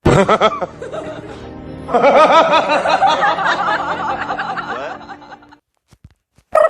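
Meme sound-effect clip of music with a person laughing over it; the laughing is loudest from about two seconds in, then fades out, leaving a short silence near the end.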